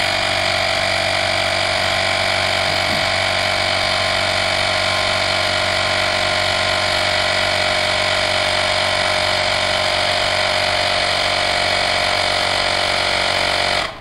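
Handheld cordless rechargeable electric tyre inflator (portable air compressor) running loudly and steadily as it pumps air into a car tyre, then cutting off near the end once it reaches its preset pressure.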